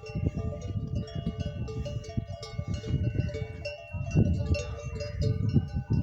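Bells worn by a herd of camels clanking and ringing together as the animals move and browse, several bell tones overlapping, over low rumbling and thumps.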